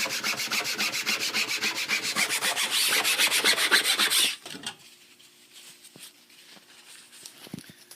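Folded paper towel rubbed fast and hard back and forth across the mesh of a screen-printing screen, scrubbing off leftover ink, with many quick scratchy strokes. The rubbing stops about four seconds in, leaving only faint handling sounds.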